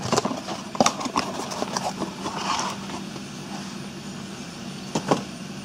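Cardboard parts box being opened and handled: a few sharp clicks and taps in the first two seconds, then a brief rustle as the part is drawn out, and a single knock about five seconds in. A faint steady hum runs underneath.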